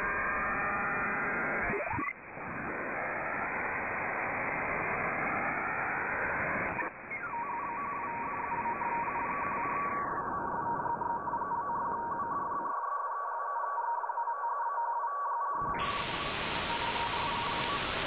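Shortwave radio static from a web-based SDR receiver tuned around 5340 kHz on the 60-metre band. Two short whistling sweeps sound as it is retuned, at about two and seven seconds in, and a steady, slightly broken tone comes in after the second. The hiss narrows and thins as the receiver's passband is changed, then turns brighter near the end.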